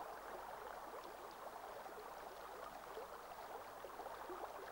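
Faint, steady babbling of a stream: trickling water.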